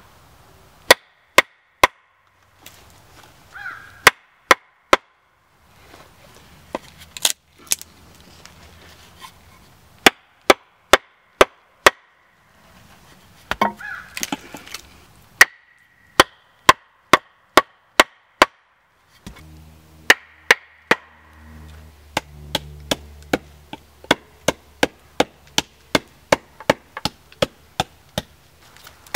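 Axe chopping into a log on a chopping block, hewing it flat: a run of sharp wooden chops, spaced about a second apart at first, then a quicker series of about two a second in the last third.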